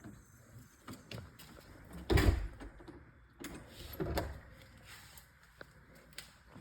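A basement door to the outside being shut: one loud thump about two seconds in, then a softer, longer knock about a second and a half later, with small clicks around them.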